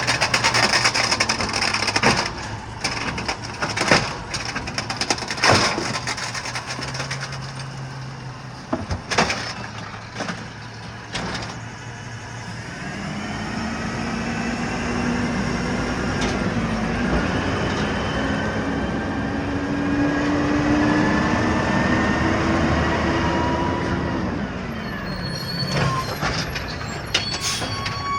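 Green-waste garbage truck at work: a run of sharp cracks and knocks of yard waste and branches tumbling into the truck, then, about halfway through, a steady whine from the truck's hydraulics that rises slowly in pitch for about ten seconds and falls away, with a few more knocks near the end.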